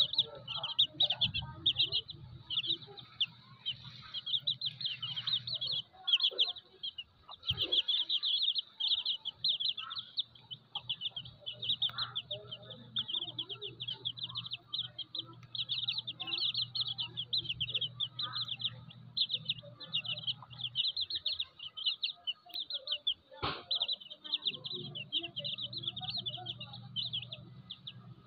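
Domestic chicken chicks peeping rapidly and continuously, many high chirps overlapping, over a low steady hum. A single sharp click sounds once, late on.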